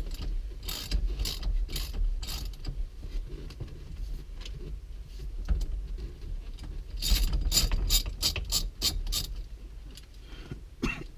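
Socket ratchet clicking in short runs as the steering wheel's center nut, just broken loose, is backed off. A run of clicks early on, and a faster, denser run about seven seconds in.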